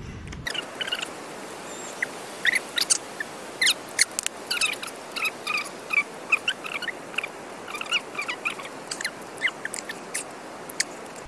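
Rapid, irregular high-pitched chirping and peeping of small birds, many short calls in quick succession over a light background hiss.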